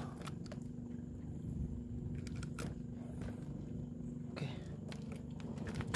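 A motor running steadily with a low, even hum, with a few faint clicks over it.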